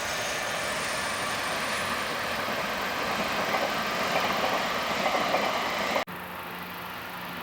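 A train passing at speed: a steady rush of wheel and rail noise that grows louder over several seconds, then cuts off suddenly about six seconds in, leaving a quieter steady hum.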